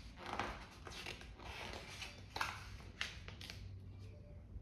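Paper rustling as a picture book's page is turned and handled, in three short swishes.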